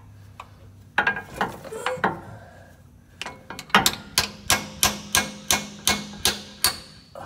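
Hammer striking a steel punch held against the bottom of a spin-on oil filter, enlarging a drain hole so the filter can drain before removal: a few scattered taps, then a quick run of about ten sharp strikes, about three a second.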